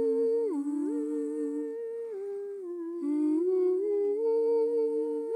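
Slow wordless humming in two parts: a melody of held notes over a lower line, each stepping from pitch to pitch. It is a little softer about two to three seconds in.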